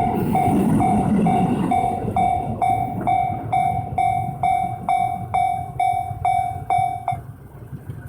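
Japanese railway level-crossing alarm ringing its electronic bell, a clanging tone repeating about twice a second, over the rumble of a passing train that dies away after about two seconds. The bell cuts off about seven seconds in as the crossing clears.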